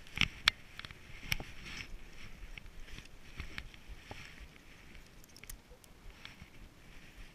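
Sharp clicks and knocks from a spinning rod and reel being handled. The loudest come in the first second and a half, followed by softer scattered ticks over a soft hiss.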